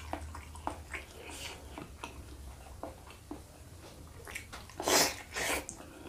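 A person chewing tambusu (egg-stuffed beef intestine), close to the microphone, with many small wet mouth clicks. About five seconds in come two louder wet mouth sounds close together. A faint steady low hum lies under it.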